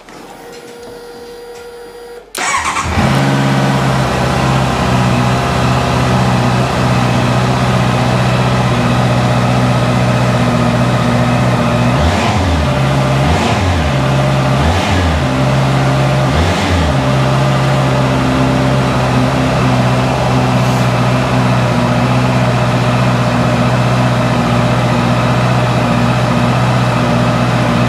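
A 2018 Honda CBR650F's inline-four engine starts about two seconds in and settles into a steady idle. It is blipped four times in quick succession in the middle, each time rising and falling back to idle.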